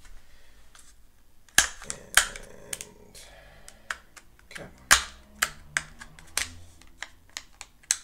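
Sharp plastic clicks and taps from handling a RAM module and its plastic packaging on a table. They come at irregular intervals, with the loudest about five seconds in.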